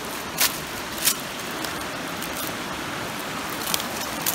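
Footsteps on loose river cobbles, with a few sharp clacks of stone on stone, over the steady hiss of a flowing stream.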